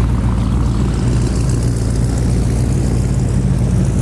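V8 engines of two Cadillac CTS-Vs rolling slowly past at idle: a steady, deep exhaust rumble.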